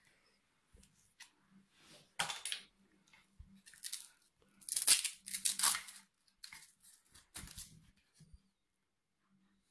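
Hair straightener's fabric cable strap being pulled open and its power cord uncoiled and handled. There are several short tearing scrapes, the loudest about five seconds in.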